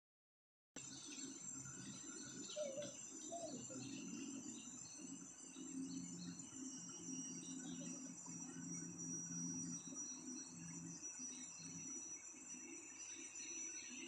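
Tropical forest ambience: a steady high-pitched drone of insects with scattered short chirps, over a low steady hum. It starts abruptly just under a second in, after silence.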